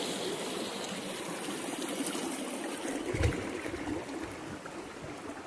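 Water of a shallow rocky stream running and trickling, growing fainter toward the end, with a single low thump about three seconds in.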